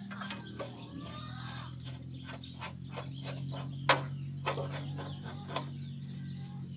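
Fuel sediment bowl of a Kubota ER65 diesel engine being twisted loose by hand: a run of light clicks and scrapes, about three to four a second, in the middle, and a sharper knock about four seconds in. Birds chirp faintly over a steady low hum.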